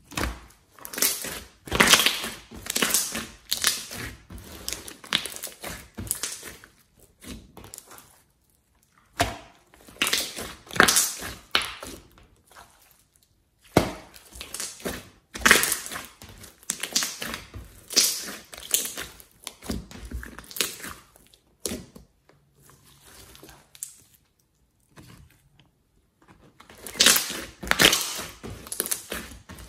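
Hands squishing and kneading a large batch of glossy slime: wet crackling squelches in irregular bursts, with short pauses between.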